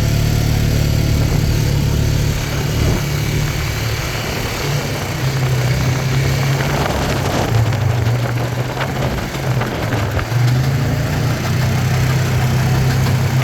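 Farm tractor engine running steadily while it pulls a round baler making hay, with a low drone that shifts slightly in pitch and a few clicks in the middle.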